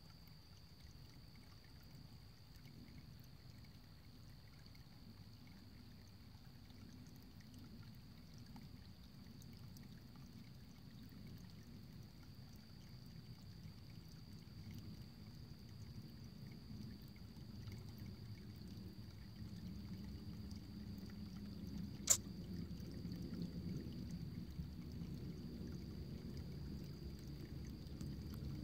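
Faint water trickling and flowing, growing slowly louder, with a thin steady high-pitched whine over it. One sharp click about twenty-two seconds in.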